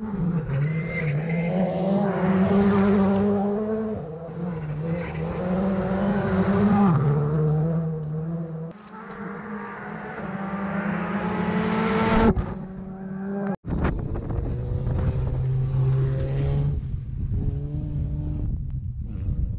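Rally cars at full throttle on a gravel stage, engines revving high, their pitch stepping and dropping with gear changes and as they pass. The sound comes as a string of short clips joined by abrupt cuts, with a momentary dropout about two-thirds of the way through.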